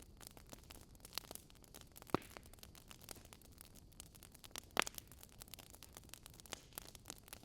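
Fire crackling: a steady scatter of small irregular crackles, with two louder pops, about two seconds in and near five seconds in.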